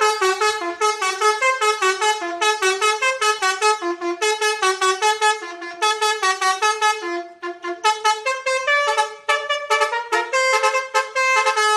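Basuri telolet multi-tone horn playing a fast melody of short, clipped horn notes in repeated phrases, with a brief pause about seven seconds in.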